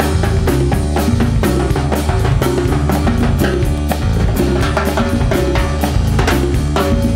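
A Latin rock band playing an instrumental passage: a busy drum-kit groove and timbales struck with sticks over a stepping bass line, with no singing.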